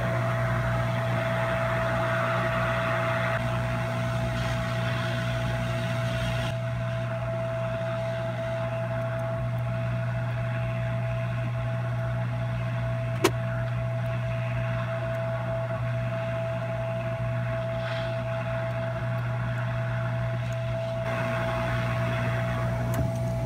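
Hot air rework station blowing hot air onto a logic board to desolder a capacitor: a steady whirring hiss with a constant faint whine. There is a single sharp click about halfway through.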